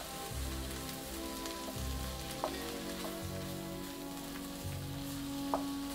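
Onions, peppers and ham sizzling gently and steadily in a frying pan, with two faint clicks in the pan. Quiet background music with a slow-changing bass line plays underneath.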